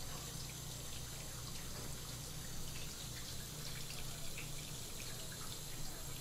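Tap water running from a sink's flexible hose spout over a whole red sea bream, with steady light splashing and scattered drips onto the cutting board.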